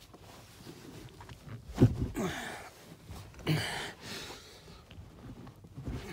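Bumps and rustling of a man moving about a car's rear seat area, with a short grunt about two seconds in and a breathy burst a second and a half later, and a low thump near the end.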